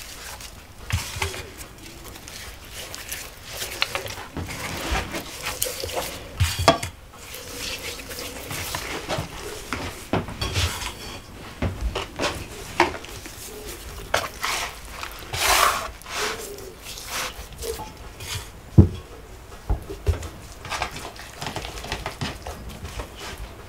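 Kitchen handling sounds: scattered clinks and knocks of a metal tray, bowls and cutlery on a table while raw chickens are handled, with a brief scraping rustle and one sharper knock late on.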